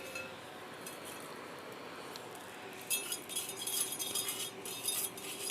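Small metal clinks and clatter of a spoon against a cooking pot, a quick run of them starting about halfway through, as crushed herbs are tipped into the heating water.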